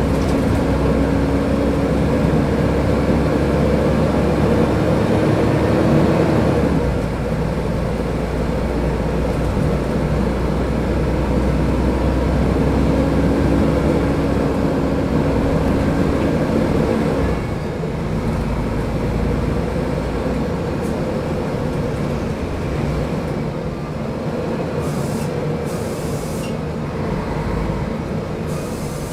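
Mercedes-Benz O500UDA bus engine pulling under load, its pitch slowly climbing and then dropping as the automatic gearbox shifts up, about 7 seconds in and again about 17 seconds in.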